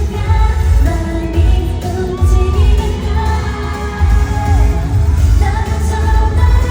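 Live K-pop song over loudspeakers: a girl group's vocals over a pop backing track with a heavy, pulsing bass beat, as heard at a concert sound check.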